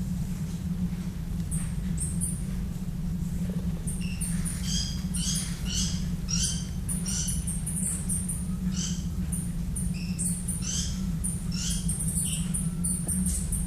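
Tropical birds chirping and calling in a rapid jumble of short, high notes, busier from about four seconds in, over a steady low hum.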